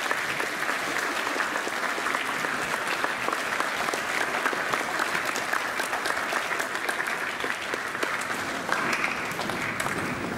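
Audience applauding steadily: many hands clapping at once.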